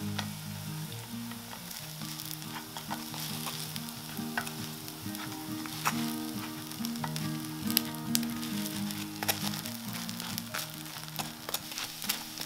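Baguette slices frying and sizzling in a black frying pan, with sharp clicks and taps as a wooden spatula turns them.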